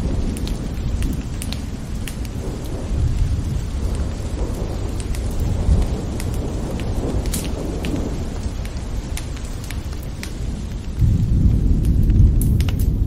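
Rainstorm ambience: steady rain with scattered sharp drop hits over a low thunder rumble that swells louder near the end.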